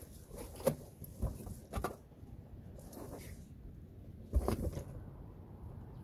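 A beagle nosing and mouthing at a latex balloon: a handful of short rubbing and knocking sounds, the strongest about four and a half seconds in.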